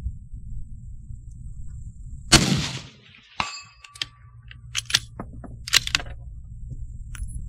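A single rifle shot about two seconds in. About a second later comes the ringing ding of the bullet striking a steel target downrange, then several sharp clicks and clacks.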